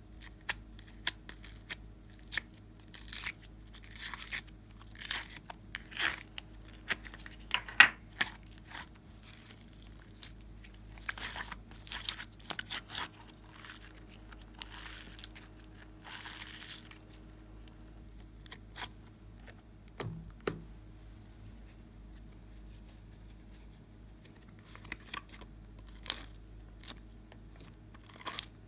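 Glossy slime being pressed and peeled out of plastic mould trays by hand: irregular sticky crackles, pops and peeling sounds, busiest in the first half and sparser for a while after the middle.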